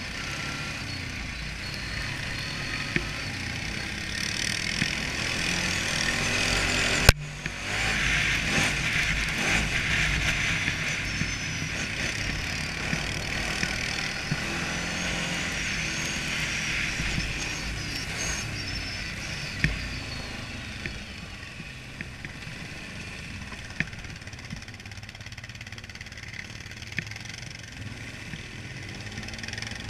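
ATV engine running while riding, with a rushing hiss that grows louder from about seven seconds in and eases off after about eighteen. A single sharp knock about seven seconds in is the loudest moment.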